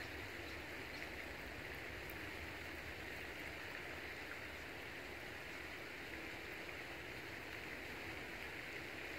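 Steady, faint outdoor hiss like distant running water, with a few faint small clicks from cord being wrapped and tied around a sapling and wooden stake.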